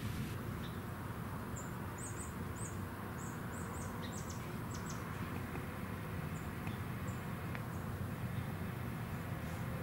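A small bird chirping: a quick run of short, very high thin notes, some sliding down in pitch, starting about a second and a half in, then a few scattered single chirps later. Under it is a steady low background rumble and hiss of the woods.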